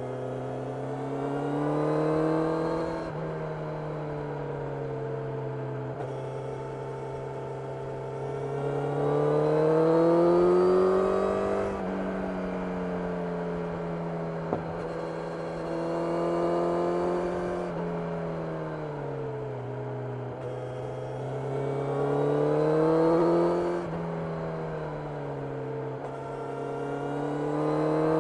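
Kawasaki Ninja 1000SX inline-four running through a full Akrapovic exhaust (headers and silencer, dB-killer fitted) while the bike is ridden. The engine note climbs and falls again about five times as the throttle is opened and eased off.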